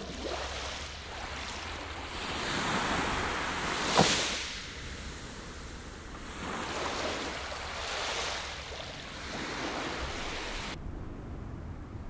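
Small waves washing up onto a sandy beach, swelling and fading several times, with one sharp slap about four seconds in, over a low wind rumble on the microphone. The wash cuts off suddenly near the end.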